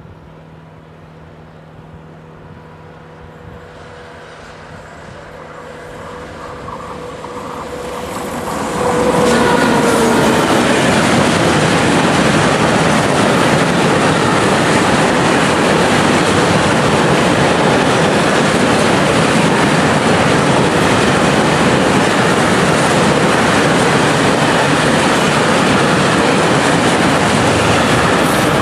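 Freight train of tank wagons approaching and passing close by. First a rising rumble with a faint steady whine as the locomotive nears, then from about nine seconds in the loud, steady rolling noise of the wagons on the rails.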